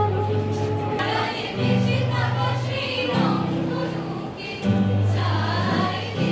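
A group of voices singing a song together in chorus, accompanied by an acoustic guitar.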